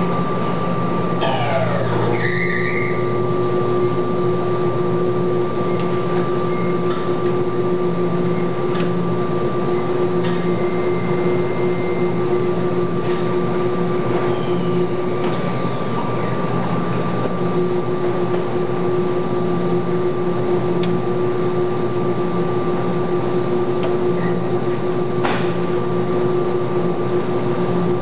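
Stainless-steel front-loading washing machine running with its drum spinning at speed: a steady motor whine over a low, pulsing hum.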